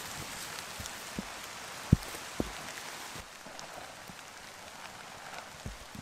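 Steady rain hissing down, with a few single heavy drops tapping loudly close by. The rain eases slightly about three seconds in.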